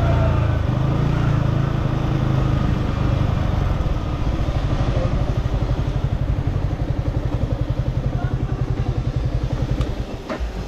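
Yamaha R15M's single-cylinder engine through its stock exhaust, running steadily and then settling into a fast, even idle pulse about four seconds in. Near the end the engine sound drops away, with a couple of sharp clicks.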